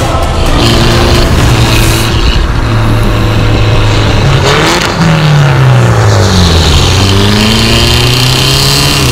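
Mini Cooper S R56's turbocharged four-cylinder through an Fi valvetronic exhaust, driving past at a steady drone. Around four and a half seconds in the pitch rises briefly, then falls away over the next two seconds as the car goes by, before settling steady again.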